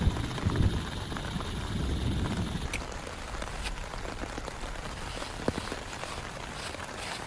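Heavy rain falling steadily, with a low rumble in the first couple of seconds and a few sharper drops ticking here and there.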